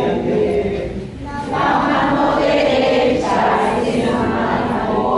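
A large group of adults singing together, with a short dip in the singing about a second in.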